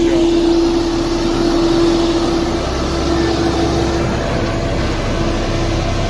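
Dynapac single-drum road roller's diesel engine running as it passes close by and moves off along the dirt road, with a steady hum over the engine noise that weakens after about four seconds.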